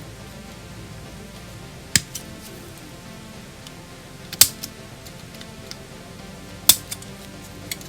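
Three sharp plastic snaps, a couple of seconds apart, as a plastic model-kit part is clipped from its runner with sprue cutters, over steady background music.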